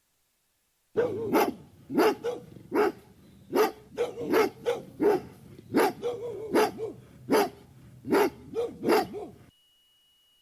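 A dog barking repeatedly, about fourteen short barks in a little over eight seconds, from a stock sound-effect recording. The barking stops about a second before the end.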